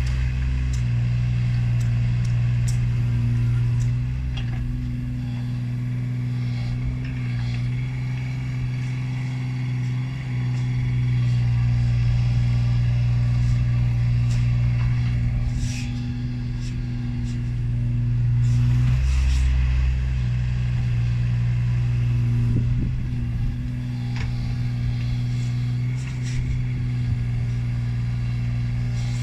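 Mini excavator's diesel engine running steadily while it digs, getting louder in stretches as the hydraulics take load, with a few short clanks from the bucket and boom.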